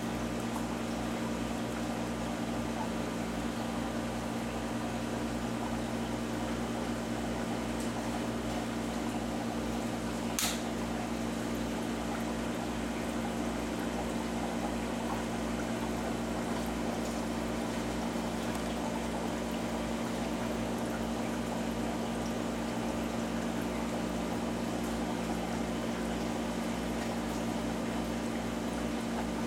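Steady low hum of aquarium equipment such as a pump, with water moving in the tank. A single sharp click about ten seconds in.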